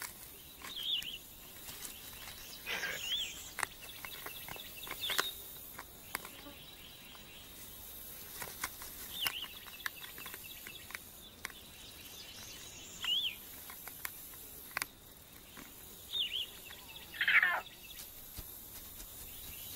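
Outdoor nature ambience: short bird chirps repeat every few seconds over a steady faint insect hum, with one longer falling call near the end and a few sharp clicks scattered through.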